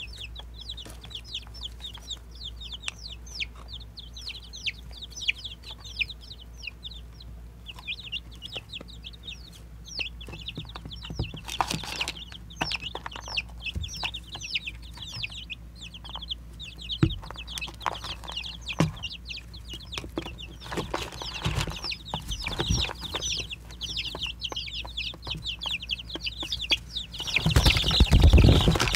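Baby chicks peeping constantly: many short, high, falling cheeps overlapping one another, with scattered small clicks and taps. A louder rustling burst comes near the end.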